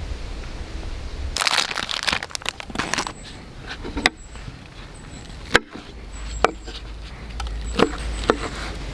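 A low outdoor rumble, then about a second and a half in a stretch of crinkling and rustling. After that, a kitchen knife cuts chikuwa fish cake into rings on a wooden cutting board: five sharp, separate knocks of the blade meeting the board.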